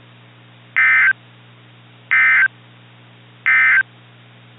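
Emergency Alert System end-of-message data bursts: three short, identical, buzzy two-tone digital bursts, evenly spaced about a second and a half apart, signalling the end of the alert. A faint steady hum sits beneath them.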